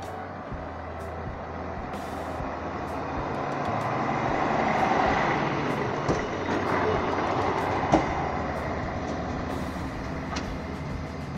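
ČD Class 809 diesel railcar passing close by and moving away, its engine running and its wheels rolling on the rails. The sound swells to a peak about five seconds in, with a couple of sharp clicks, the second one louder, then fades as it draws away.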